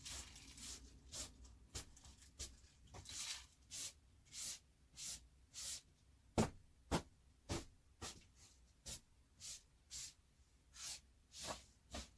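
Brush strokes through a dog's coat: a run of short, soft swishes, about three every two seconds.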